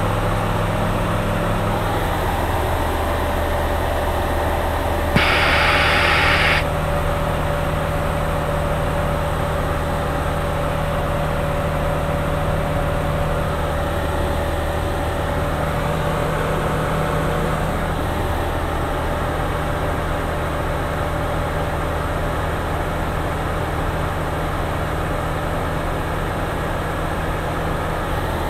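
Steady drone of a light aircraft's engine and propeller heard inside the cockpit, its low note shifting slightly about two seconds in. About five seconds in, a short burst of hiss starts with a click and lasts about a second and a half.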